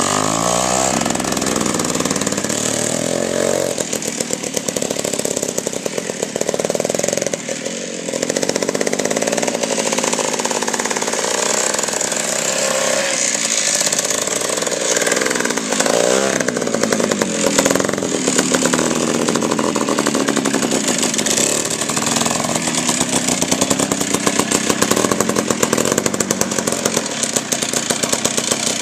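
8-horsepower West Bend Power Bee two-stroke engine of a two-wheel-drive Trail-Breaker minibike running under load as it is ridden, through a straight exhaust with a spark-arrestor muffler. Its pitch rises and falls several times with the throttle.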